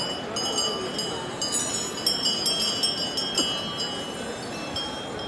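Small metal bells ringing and clinking on and off, each strike ringing on at a few fixed high pitches, over the murmur of a crowd.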